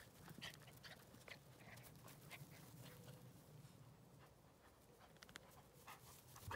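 Dogs at play, panting faintly, with small quick sounds scattered through.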